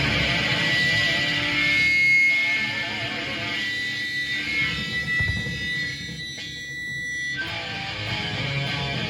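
Band music led by electric guitar, with a high held note running through the middle and growing a little quieter after about two seconds.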